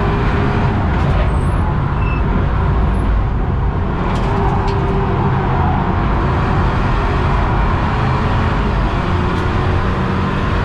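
BMW 328i F30's turbocharged four-cylinder engine running steadily, mixed with tyre and wind noise, heard from inside the cabin.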